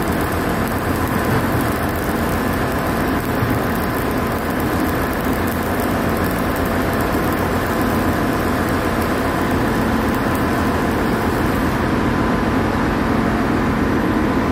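Electric arc welding on a flanged steel pipe, a steady crackle over a constant heavy machinery drone; the arc stops near the end while the drone carries on.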